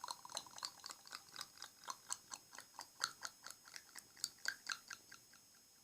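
Quick, irregular clicks, several a second, close to the microphone, that stop about five seconds in.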